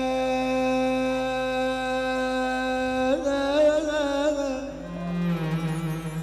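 Live Egyptian sha'bi wedding music through the hall's loudspeakers: one long steady held note for about three seconds, then a quick rise into a wavering, ornamented phrase that steps down to lower notes near the end.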